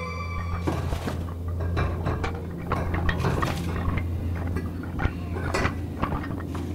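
Bones clattering and clinking as they are shifted about: many irregular light knocks over a steady low hum, after a held note ends within the first second.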